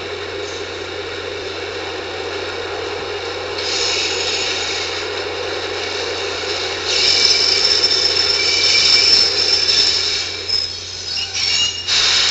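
New York City subway train running into a station over a steady rumble, with loud high-pitched metal-on-metal squealing as it brakes for several seconds. There is a brief burst of noise near the end.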